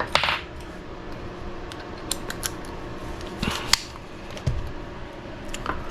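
Small plastic and metal parts handled on a workbench: scattered light clicks and a few short rustling swishes.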